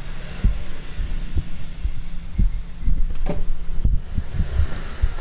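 Cats scrabbling and thumping on a cardboard box: irregular dull thuds, thickest in the second half, over a low steady hum.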